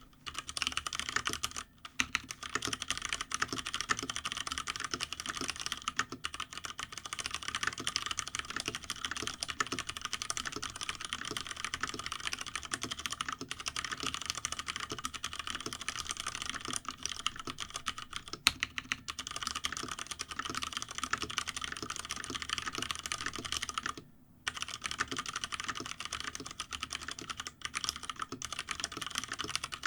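Continuous fast typing on a Hansung GK993B SKY mechanical keyboard with stock, unlubricated Cherry MX Brown switches, set straight on the desk without a desk pad. The key clicks stop briefly about 24 seconds in, then resume.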